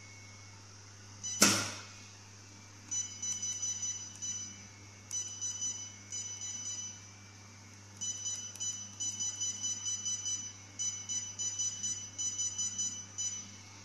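Touchscreen control panel of an SHR/E-light hair removal machine beeping as its on-screen keys and up/down arrows are tapped: runs of short high beeps, up to about five a second, as the energy setting is stepped. About a second and a half in, a single sharp click, the loudest sound.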